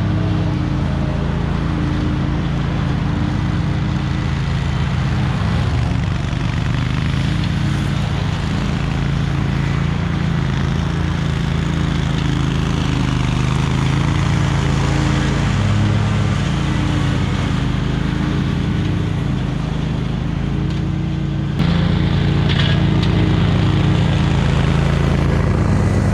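Small gas engine of lawn-cutting equipment running steadily at working speed. About three-quarters of the way through, the sound jumps abruptly slightly louder and carries on.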